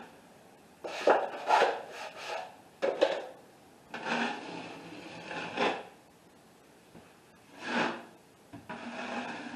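Steel drywall knife scraping joint compound off against a mud pan, then spreading it onto a ceiling patch: several short scraping strokes with pauses between them.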